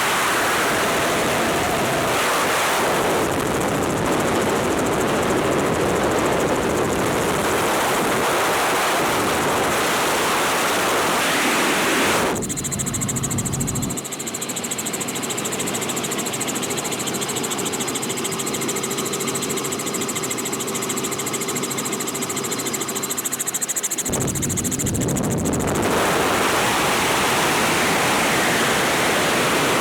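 Wind rushing over the microphone of a camera in the open doorway of a doors-off Robinson R44 helicopter in flight, mixed with its rotor and piston engine noise. From about 12 seconds in the wind rush eases, leaving a steadier hum with faint even tones, and about 25 seconds in the full rush comes back.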